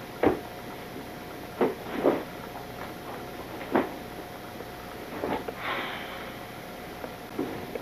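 Scattered short knocks and rustles of small objects being handled in the lap, about six in all, over a steady faint hum.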